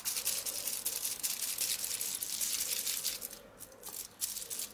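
Rapid scratching and crinkling on aluminium foil as leftover dye is stirred into UV resin on a foil palette; it thins out about three seconds in, leaving a few light clicks.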